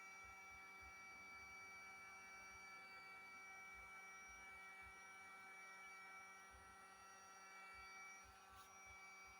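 Near silence: a faint steady hum with several high whining tones, and one faint tick near the end.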